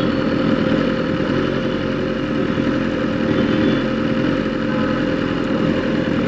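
BMW S1000RR's inline-four engine idling steadily at a standstill, with a constant hum and the noise of other traffic around it.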